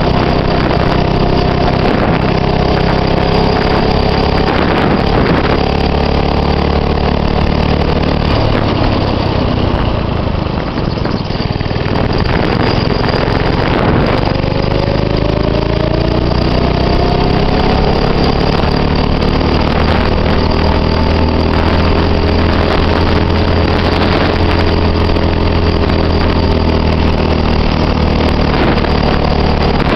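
Go-kart engine running under way, its pitch sliding up and down with speed. It eases off briefly about ten seconds in, then climbs again.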